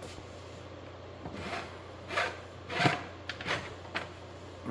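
A few brief rubbing and knocking handling sounds, the strongest about three seconds in, over a steady low hum.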